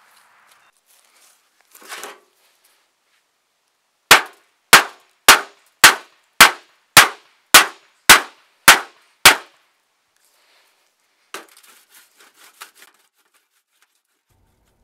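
Metal hammer striking a steel plate ten times in quick succession, about two blows a second, each a sharp ringing clang. The small pile of tetrabromoethylenediamine being struck only smears and gives no bang, showing next to no shock sensitivity.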